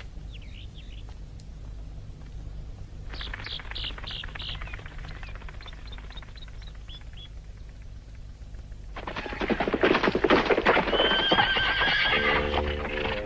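Animal sounds in a cartoon soundtrack: a run of short high calls a few seconds in, then from about nine seconds a loud clattering rush with a high, neigh-like cry. Music starts near the end.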